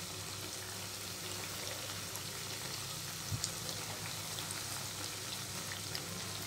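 Nimki dough pieces deep-frying in oil on low-to-medium flame: a steady, even sizzle with scattered small crackles. A spatula moves the pieces in the pan, with one light knock about three seconds in.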